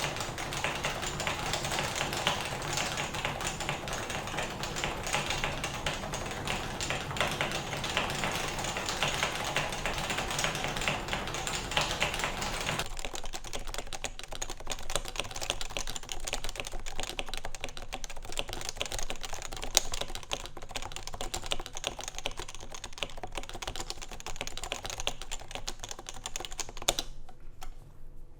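Continuous typing on a Topre keyboard built from Realforce 88UK internals with lubed Topre switches, a stainless steel plate and Realforce keycaps: a fast, dense run of keystrokes. About halfway through, a low background hum drops away while the typing goes on.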